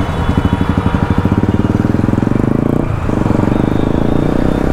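KTM Duke 200's single-cylinder engine pulling away from a stop, revs climbing, with a brief dip for a gear change about three seconds in before it climbs again.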